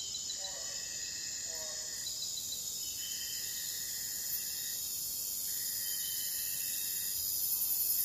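Forest insect chorus: a steady high-pitched buzzing, with a lower whine that comes and goes in stretches of about a second and a half.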